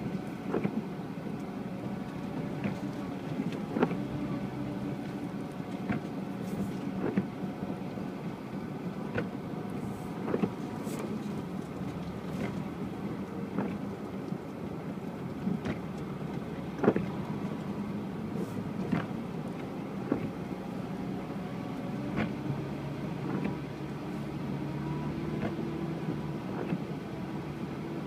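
UAZ Patriot's engine running steadily as the vehicle drives over rough off-road ground, with frequent short knocks and clunks from the body and suspension.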